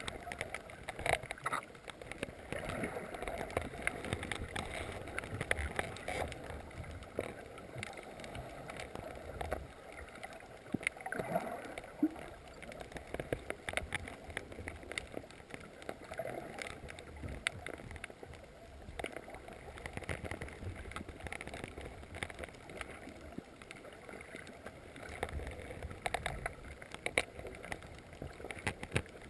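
Underwater reef ambience heard through a GoPro's waterproof housing: a low, muffled water surge with a steady scatter of sharp clicks and crackles.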